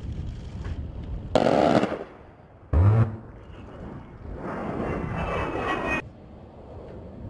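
A-10 Thunderbolt II firing its 30 mm GAU-8 Avenger cannon in two short bursts about a second apart, each well under a second, the second deeper. Then the jet's twin TF34 turbofans whine high as it flies past, cutting off suddenly.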